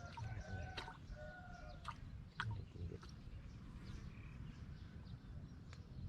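Faint chicken call: two short pitched notes in the first second and a half, followed by a few sharp clicks and taps.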